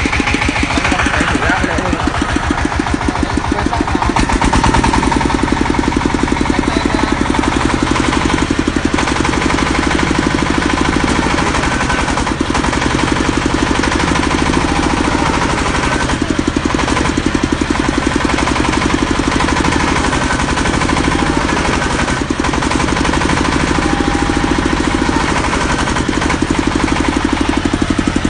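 Engine of an industrial drilling machine running steadily with a rapid, even firing beat.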